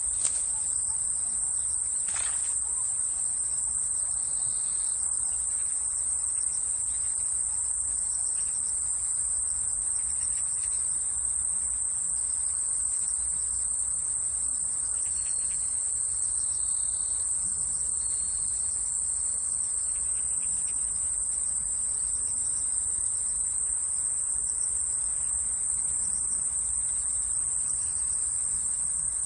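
Insects singing in a steady, unbroken high-pitched chorus.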